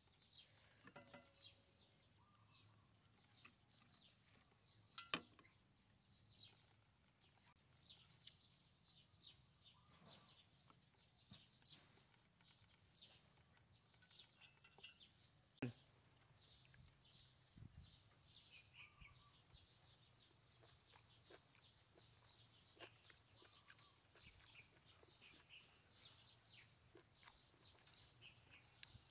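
Near silence outdoors: faint, scattered bird chirps throughout, with a few sharp clicks, the loudest about five seconds in and just past the middle.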